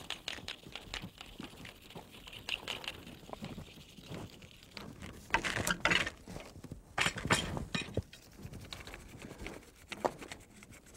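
Footsteps on ground strewn with loose wood chips, irregular and scuffing, loudest a little past the middle.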